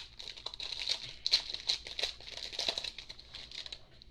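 Crinkling and tearing of a trading-card pack's plastic wrapper as it is ripped open, an irregular stream of sharp crackles that dies away near the end.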